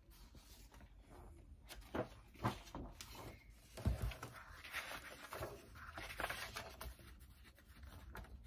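Paper rustling as printed cross-stitch pattern sheets are handled and turned, with a few sharper crinkles along the way.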